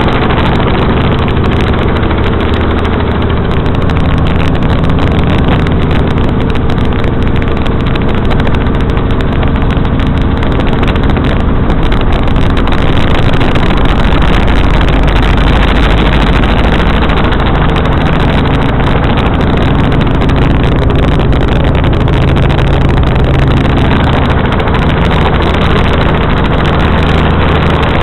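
Helicopter engine and rotor noise, loud and steady, with a low droning hum under a dense rushing wash.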